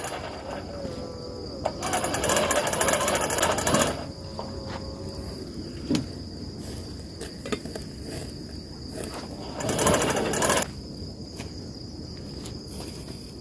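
Small electric blower fan on a charcoal grill running with a steady rattling motor noise, fanning the coals, and two louder rushes of noise about two seconds in and near ten seconds. A steady high cricket trill runs behind it.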